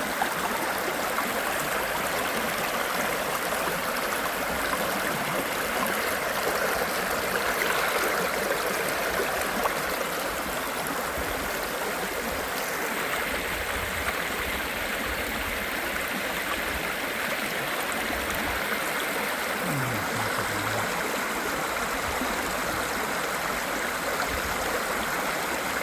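Creek water rushing steadily over a shallow rapids, an even unbroken splashing.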